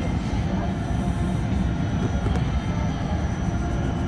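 Inside a Lille VAL rubber-tyred automated metro train: a steady low rumble with a faint high-pitched whine.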